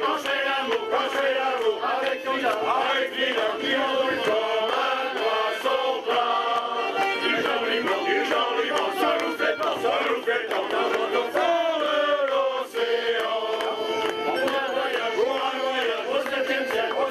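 A male sailors' choir singing a sea song together in full voice.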